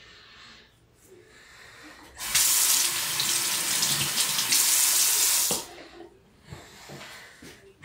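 Bathroom sink tap turned on, water running loudly into the basin for about three seconds, then shut off abruptly.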